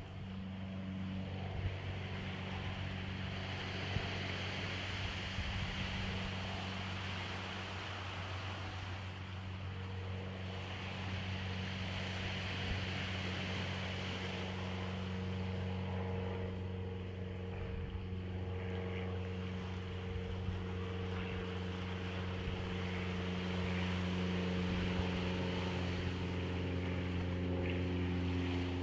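An engine running with a steady low hum that slowly grows louder, over a constant wash of noise.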